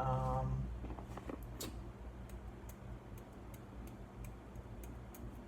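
A metal fork's tines poking holes into a raw potato: a string of small, irregular clicks, a few each second, over a steady low electrical hum. A short voiced sound comes at the very start.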